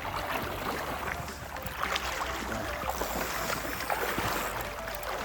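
River water flowing and lapping, a steady rush with a low rumble and small scattered clicks and splashes.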